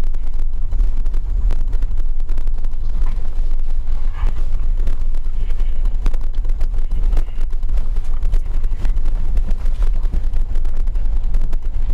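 Steady low rumble of a car driving over a rough, stony road, with wind buffeting the microphone and many small knocks and rattles from the stones under the tyres.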